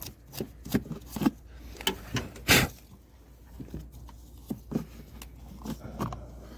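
A run of irregular knocks and clicks from handling around the car, the loudest about two and a half seconds in.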